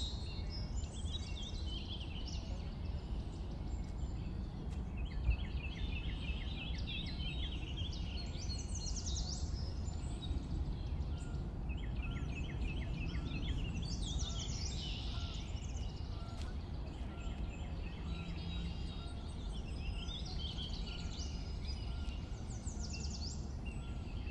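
Several songbirds singing in repeated short phrases and quick trills, over a steady low outdoor rumble.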